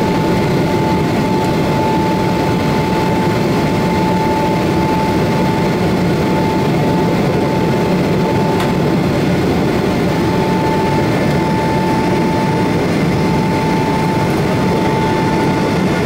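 Cabin noise inside a Boeing 777-300ER climbing after take-off: the steady rushing sound of its GE90-115B turbofan engines at climb thrust and the airflow along the fuselage, with one steady high tone running over it.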